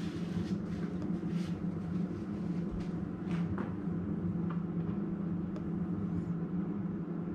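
A steady low hum with a few light clicks and taps of a utensil against the cutting board and plate while empanadas are filled by hand.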